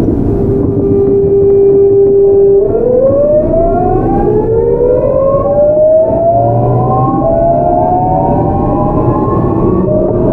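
GEC Alsthom GTO-VVVF traction inverter of a Seoul 8000-series electric train whining under acceleration. It holds one steady tone for a couple of seconds, then several tones rise together in pitch, falling back and climbing again several times, over the rumble of the running train.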